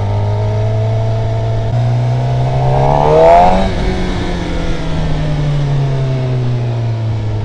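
2012 Suzuki GSX-R750's inline-four engine running under way. Its pitch steps up about two seconds in and climbs to a peak near the middle, which is the loudest moment, then falls slowly as the bike rolls on.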